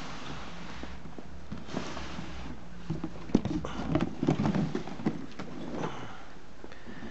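Large cardboard model-kit box being turned over and handled: scattered knocks, taps and rubbing of cardboard against hands, busiest from about three to six seconds in, with one sharp tap.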